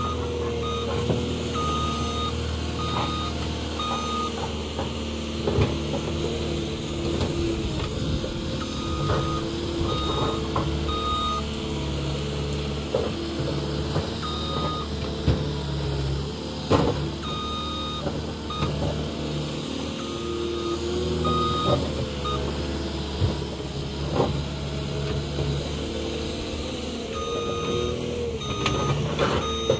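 Cat 289D compact track loader's diesel engine running and changing speed as it works, with its reversing alarm beeping in several runs. A few sharp knocks break through, the loudest a little past halfway.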